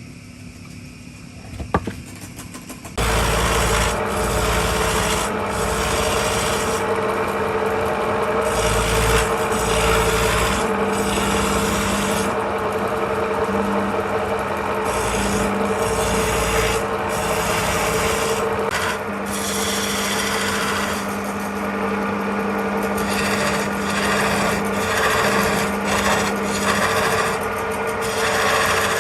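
Wood lathe running while a turning tool cuts the spinning wood, giving a steady rough scraping over the lathe's hum. After a few clicks it starts about three seconds in and goes on with brief breaks where the tool comes off the wood.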